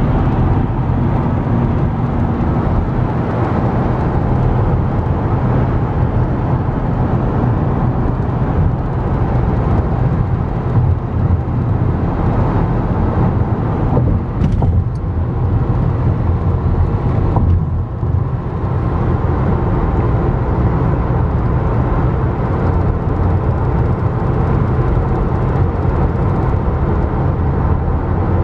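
Steady road and engine noise of a car cruising at highway speed, heard from inside the cabin.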